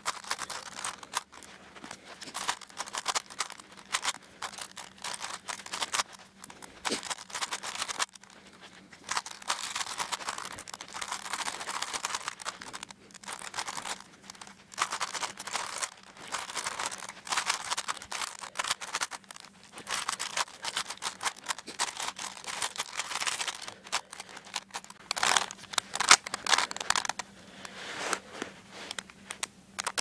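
Plastic Rubik's Cube layers being turned rapidly by hand: dense runs of clicking and clacking, broken by a few short pauses.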